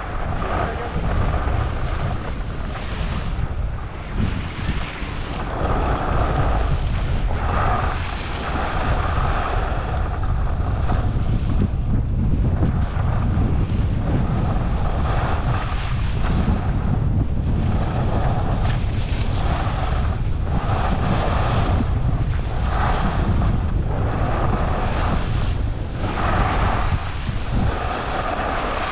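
Wind buffeting a helmet-mounted camera's microphone while skiing downhill. Over it, the scrape of skis on packed snow swells with each turn, about every second and a half.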